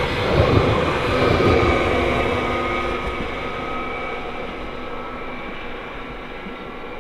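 Stadler passenger train running past and away. Its rumble and rail noise fade steadily over several seconds, with a thin steady whine above them.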